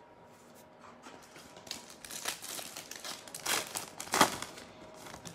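A basketball trading card pack's wrapper being crinkled and torn open by hand, in irregular crackling strokes, loudest about two to four seconds in.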